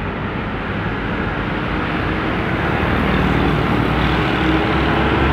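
Diesel engine of a Mitsubishi Fuso truck running as the truck drives slowly past, getting steadily louder as it comes alongside.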